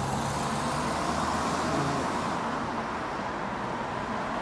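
Road traffic: cars driving past, a steady hum of engines and tyres.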